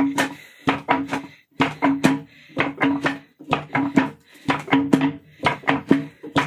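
Music led by a hand drum: sharp pitched strokes in a steady rhythm, a few to the second.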